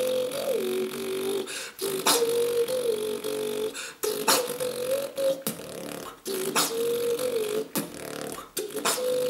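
Human beatboxing: a hummed melody through closed lips, stepping up and down between a couple of notes. Sharp percussive mouth clicks and snares come roughly once a second.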